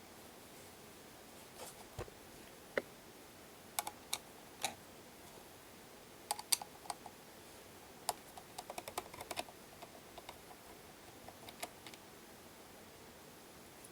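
Irregular light clicks and taps, some in quick clusters, over a faint steady hiss.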